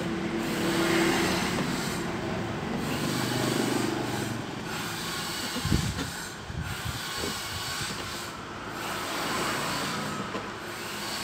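Steady airy hiss with faint rubbing as a soldering iron tip is dragged over a motherboard's solder pads to level and clean them, and a few soft knocks about six seconds in.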